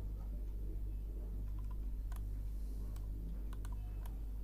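A scattering of sharp clicks from a computer's mouse and keyboard, several bunched together about three and a half seconds in, over a steady low electrical hum.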